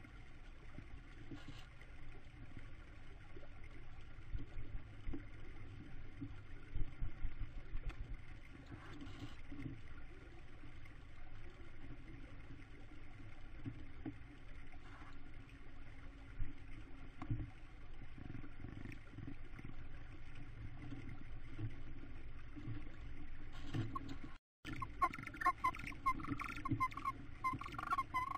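Tawny owl and downy chicks shifting about in a nest box: low rustling of feathers and wood shavings with soft bumps. Near the end, after a brief break in the sound, a run of thin, squeaky chirps sets in.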